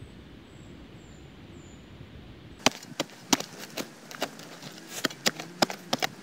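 Short steel shovel chopping and scraping into forest soil: a string of sharp, irregular chops, two or three a second, starting about two and a half seconds in after a faint steady background.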